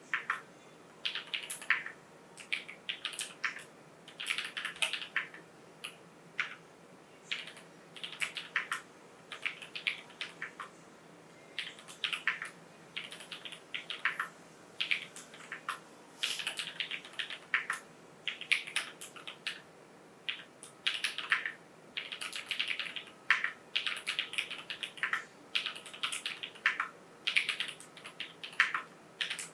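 Orion87 mechanical keyboard with no foam inside, typed on in quick runs of clacking keystrokes with short pauses between the runs.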